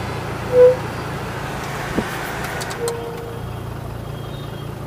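Honda City disc brakes squeaking in the moving car: a short, loud squeak about half a second in and a longer one around three seconds, over steady road and engine noise. The garage put it down to sticking calipers leaving the pads rubbing on the discs, and the owner thinks the old pads have hardened.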